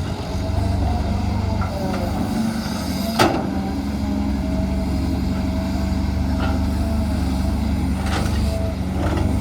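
Cat 320GC excavator's four-cylinder diesel engine running steadily under work, with a thin steady whine above the engine note. A single sharp knock comes about three seconds in, and there are a few fainter clicks later on.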